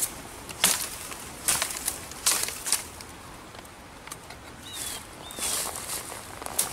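Machete blade chopping into small wet dead branches: five sharp whacks in the first three seconds, then a few softer blows and rustling in the brush.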